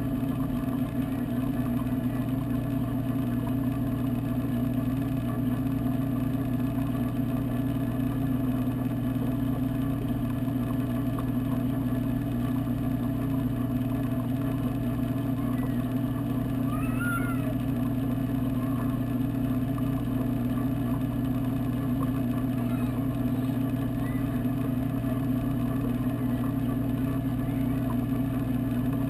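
Steady electrical hum of the aquarium's water pumps, heard underwater from inside the tank over a faint wash of moving water.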